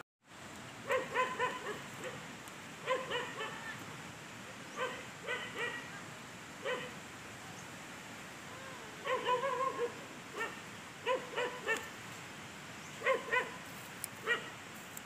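A dog barking repeatedly in short bursts, one to three barks at a time, every second or two.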